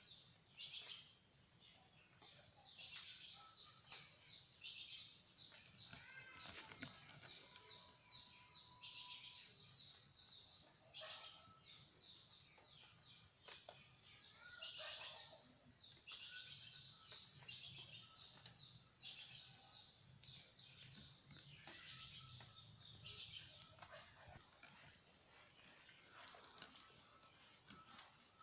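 Wild birds chirping and calling, faint: short high-pitched chirps and trills every second or two from several birds.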